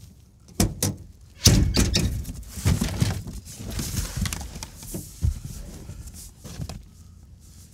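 A cardboard box of plastic pedestals being lifted and handled in a pickup truck's bed: two sharp knocks, then a few seconds of scraping, rustling and knocking, with a few more single knocks near the end.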